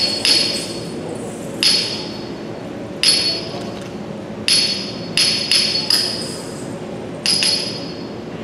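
Small metal hand cymbals keeping the Bharatanatyam rhythm, struck about eight times at uneven spacing, with a quick run of three strokes midway. Each strike rings on briefly, over a faint steady drone.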